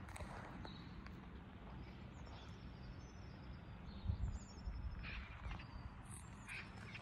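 Faint outdoor ambience: a steady low rumble with small, scattered bird chirps, a low bump about four seconds in, and a few soft footsteps near the end.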